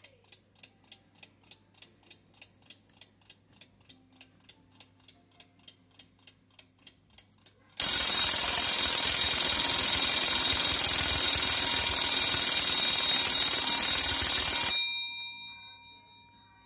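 Smiths English Clock Systems interval timer: its clockwork ticks at about two and a half beats a second. Then its alarm bell rings loudly and continuously for about seven seconds as the timed interval runs out. The ringing cuts off suddenly, leaving a short fading ring.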